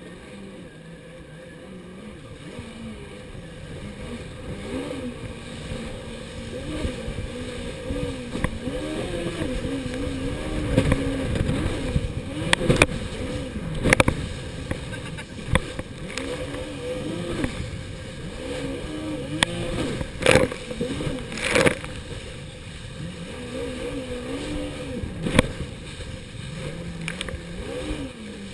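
Jet ski engine running at speed, its pitch rising and falling again and again as it crosses the waves. Several sharp slaps and splashes come as the hull hits the wave crests.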